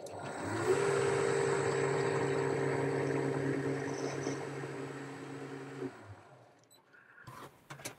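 Boxford metal lathe starting up and running steadily with a motor and gear hum, spinning an aluminium bar in its chuck while the end is deburred. It is switched off about five seconds in and runs down to a stop, followed by a few short clicks.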